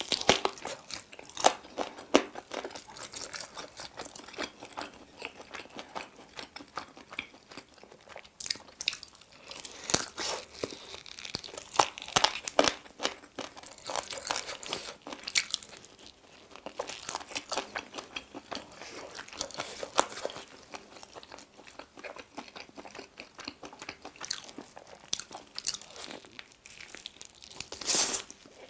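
A person biting into and chewing sauce-glazed fried chicken wings: an irregular run of sharp bites and chewing clicks, with louder bites now and then.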